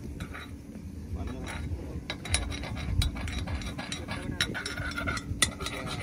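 A metal spoon clinking and scraping against the wells of an appe (paniyaram) pan as ghee is spooned into them, giving a string of irregular sharp clinks.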